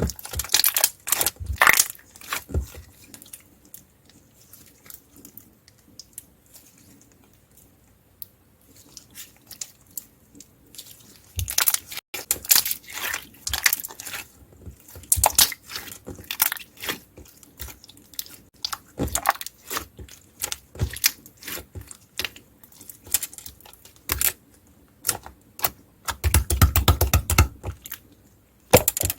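Clear bead slime being played with: irregular crunchy clicks and crackles, sparse for a few seconds, then denser, with a fast run of clicks near the end.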